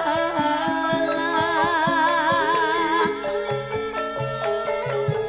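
Javanese gamelan music: a singer's voice with a wide, wavering vibrato over steady ringing metallophone notes and a run of short, regular percussion strikes.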